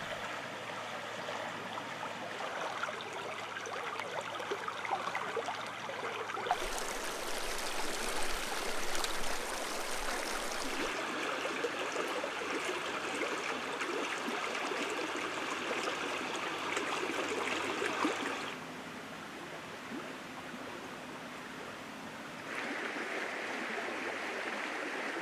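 Shallow stream water rushing and rippling over a sand and gravel bed and around rocks. The rush changes suddenly in loudness and brightness several times, and is quieter for a few seconds past the three-quarter mark.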